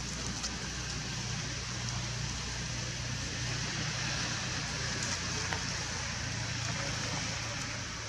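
Steady outdoor background ambience: an even hiss with a low hum beneath it and a few faint ticks.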